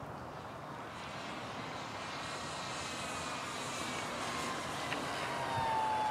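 Radio-controlled model airplane's motor and propeller whining as the plane flies in and passes overhead. It grows louder throughout, and the whine drops in pitch near the end as the plane goes by.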